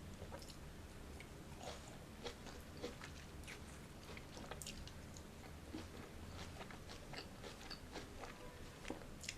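Close-miked chewing and biting of juicy fruit: irregular wet mouth clicks and smacks, several a second, over a faint low hum.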